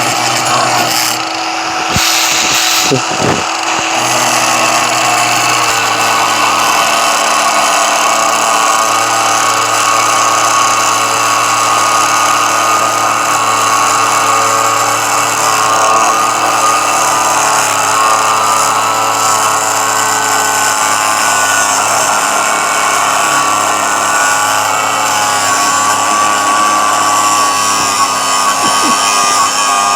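Budget cordless angle grinder with a thin cutting wheel, running steadily and cutting through scrap metal: a continuous motor whine over the hiss of the abrasive wheel on steel, with a few knocks about two to three seconds in.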